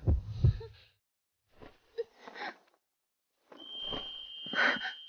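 Two deep heartbeat thumps at the start, then a person's breathy sighs and gasps. About three and a half seconds in, a high steady ringing tone comes in over the breathing.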